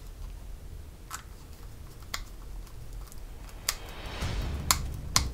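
Small screwdriver turning tiny screws into the plastic lid of a model speaker box: a handful of sharp clicks about a second apart, and a short scraping rasp near the end as a screw is driven in.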